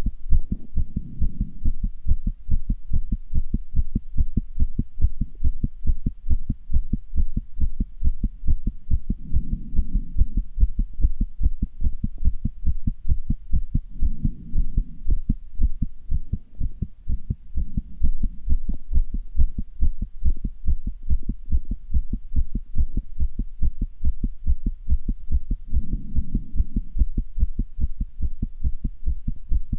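A human heart beating fast, a quick even run of low thuds as the heart valves open and close.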